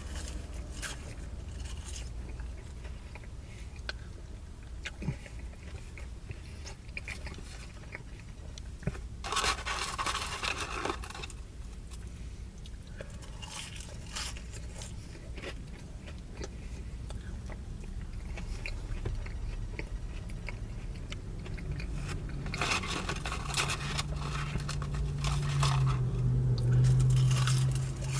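Someone eating french fries: chewing and crunching, with bursts of scraping and rustling from the paper packaging about 9 seconds in and again near the end. A low hum swells over the last few seconds.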